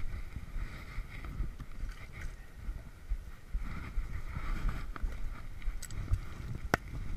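Footsteps and brushing through branches as someone clambers over river stones through streamside brush, with a mountain stream rushing steadily. A couple of sharp clicks come near the end.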